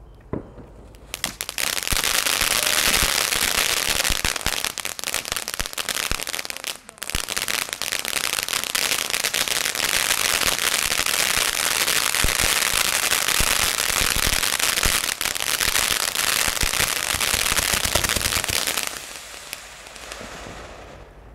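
Ground fountain firework spraying sparks with a dense, continuous crackle. It starts about a second in, breaks off briefly about seven seconds in, and dies away near the end.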